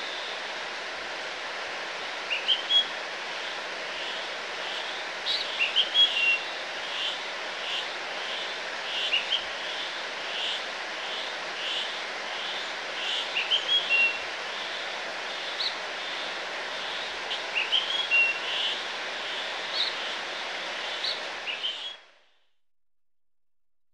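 Outdoor ambience: birds chirping in short, high, repeated calls over a steady background hiss, cutting off abruptly near the end.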